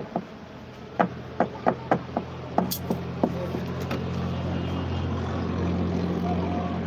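A quick run of sharp knocks and clicks from the phone being handled and moved, then a steady low engine hum that swells a little and holds.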